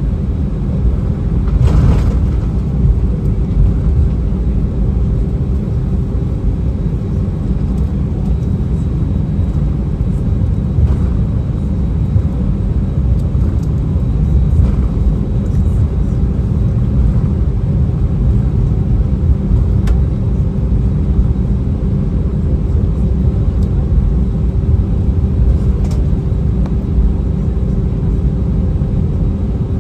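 Airbus A319 jet engines and airflow heard inside the passenger cabin: a loud, steady deep rumble with a thin steady hum over it. There is a single short click about two seconds in.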